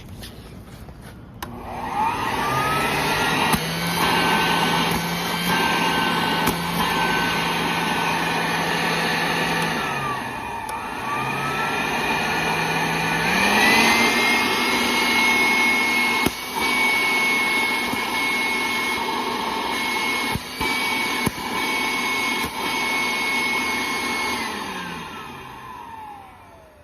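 Makita model 450 small dust extractor's vacuum motor switched on, spinning up to a steady whine, winding down and restarting about ten seconds in, then running at a higher pitch until it winds down near the end. A few sharp clicks sound while it runs.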